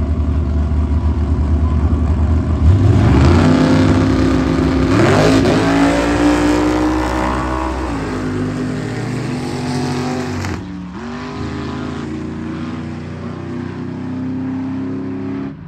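Drag race cars launching off the line and accelerating hard down the strip, the engine note climbing in pitch in repeated upward sweeps. After about ten seconds the sound drops suddenly to a steadier, lower engine note.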